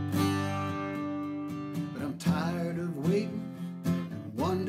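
Acoustic guitar strummed and left ringing under a slow song, with a man's singing voice coming back in about two seconds in.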